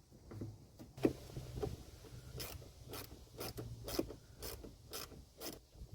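Hose clamp on a car's lower radiator hose being tightened with a hand tool: a run of short scraping clicks, about two a second.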